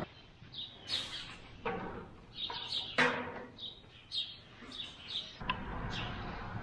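Small birds chirping in short, repeated high calls, with a few sharp knocks and clatter from a bucket being handled.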